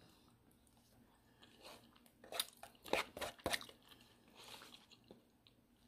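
Faint close-up eating sounds: a person chewing food, with a cluster of sharp clicks and crunches about two to three and a half seconds in.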